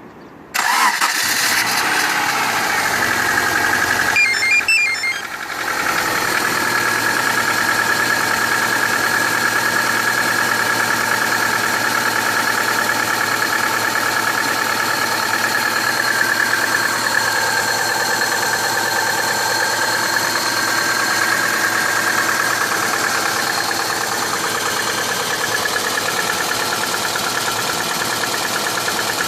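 Subaru EJ18 1.8-litre flat-four boxer engine starting about half a second in and settling into a steady idle. It is a 305,000 km engine with a knock, which the owner suspects comes from the fourth cylinder.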